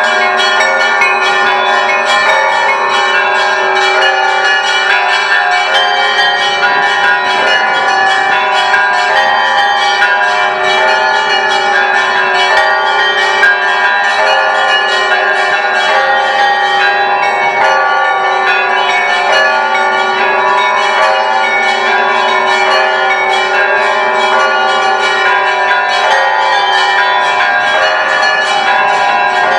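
Orthodox church bells of the Great Lavra Bell Tower pealing without a break: small bells struck in a fast, dense stream of strokes over the lingering ring of larger bells. A deep bell tone fades out about six seconds in.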